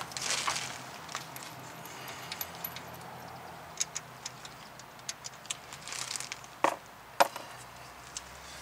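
Light metallic clicks and clinks as a car wheel is fitted back onto the hub and its lug nuts handled, with two sharper knocks about seven seconds in.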